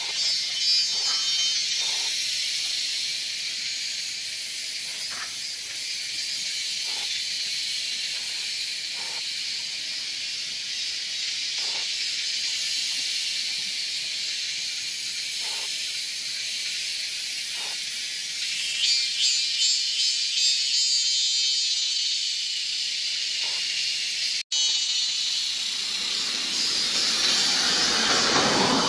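Steady, high-pitched drone of forest insects, pulsing for a couple of seconds about two-thirds of the way in, over a faint low hum. The sound cuts out for an instant near the end.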